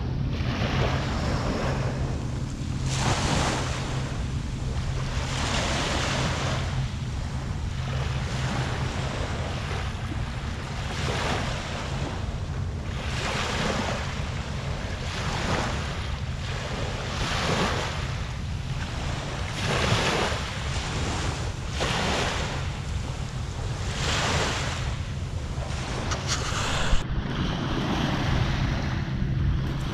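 Small waves breaking and washing up the beach, a fresh surge every two seconds or so, with wind rumbling on the microphone. A single sharp click near the end.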